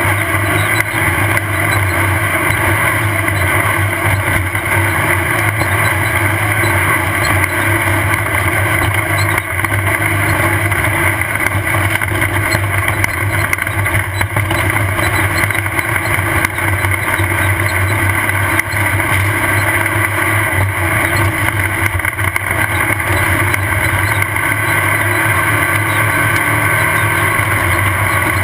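Off-road race car's engine running steadily under load at speed, heard from on board, mixed with constant rumble and rattle from the vehicle.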